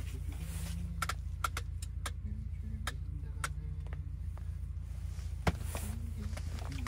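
Steady low rumble of a running engine, with scattered sharp clicks and taps, the loudest a little past the middle.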